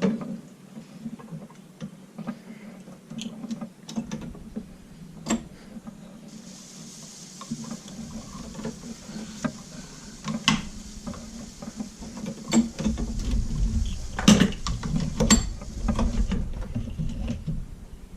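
Heavy-duty leather sewing machine stitching a strap onto a thick leather gun belt: mechanical clicks and knocks at an irregular pace over a steady low hum, heavier from about two-thirds of the way in.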